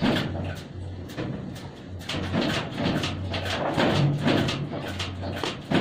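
Hot glue gun being handled and loaded with a glue stick: irregular plastic knocks and rattles against a wooden table.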